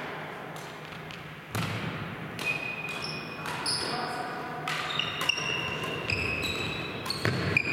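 Badminton play: racket strikes on the shuttlecock and footfalls, with sports shoes squeaking on the court floor repeatedly from about two seconds in.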